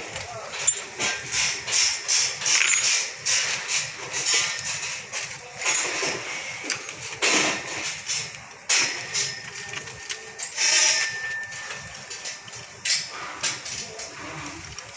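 Hands and hand tools working on a car's battery terminals and engine bay: irregular taps, clinks and scrapes of metal, with a short squeak a little past the middle.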